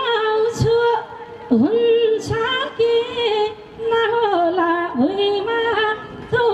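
A woman singing a Nepali folk song solo over a stage PA. Her high voice is heavily ornamented, with yodel-like turns, and twice it swoops down in pitch and climbs back.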